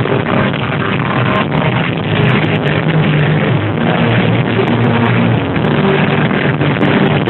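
Loud live concert music with held bass notes.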